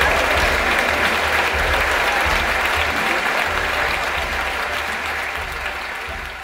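Stand-up comedy audience applauding after the closing punchline, the clapping fading out steadily.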